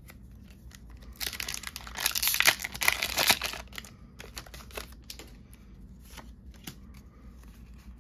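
Foil Pokémon TCG booster pack wrapper torn open and crinkled, a dense crackling burst from about one to three and a half seconds in. Scattered light clicks and rustles follow as the cards are handled.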